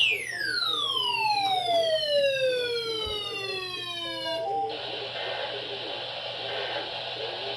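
A siren-like tone with many overtones slides steadily down in pitch for about four and a half seconds, then cuts off suddenly into a steady hiss.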